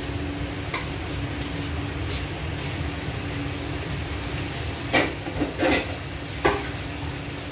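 Steady whooshing hum of a kitchen range hood fan, with a few sharp clatters of cookware about five to six and a half seconds in.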